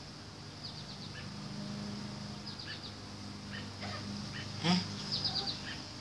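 Outdoor background: short high-pitched chirps in quick runs of three or four over a low steady hum, with one sharp click about three quarters of the way through.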